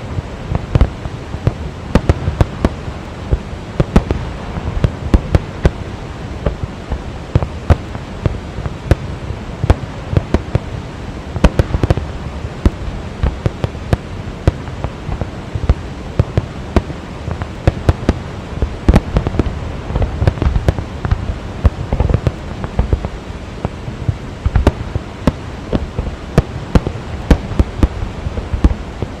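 Fireworks display: a rapid, unbroken run of bangs and crackling pops, several a second, over a steady low rumble.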